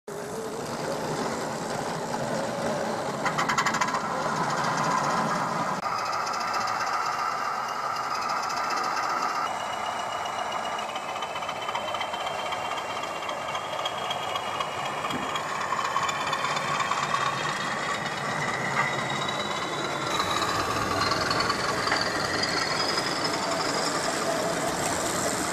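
Model railway Class 20 diesel locomotive running along the track, a steady mechanical running sound with a whine that slowly rises in pitch over the last few seconds.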